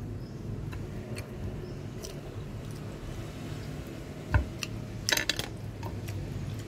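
Scattered light clinks and knocks of tableware being handled, with one sharper knock about four seconds in and a quick run of clicks a second later, over a steady low hum.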